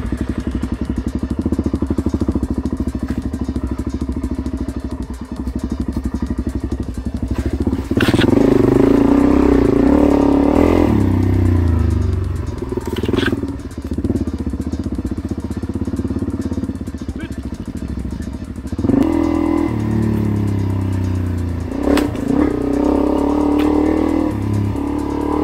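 Single-cylinder four-stroke dirt bike engine running on the move, the revs rising and falling with the throttle and getting louder about eight seconds in. A few sharp knocks and clatters break in along the way.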